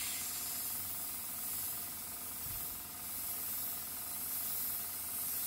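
Steady hiss of air from a cheap 0.3 mm pistol-grip trigger airbrush spraying paint.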